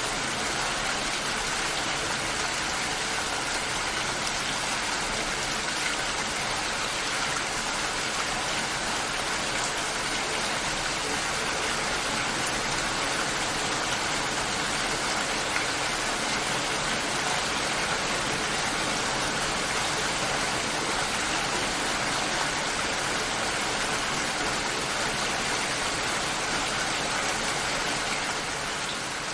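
Steady rainfall, an even hiss of countless drops with no single drop standing out, easing off slightly near the end.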